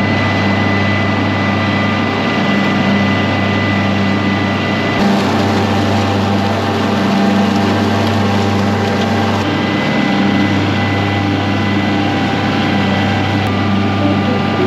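Kioti CK2510 compact tractor's three-cylinder diesel engine running steadily at working speed, likely while mowing, with a thin high whine over its steady drone.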